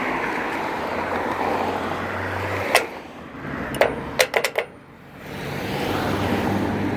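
Steady road traffic noise, broken a little under three seconds in by a few sharp clicks and a brief quieter stretch before the traffic noise returns.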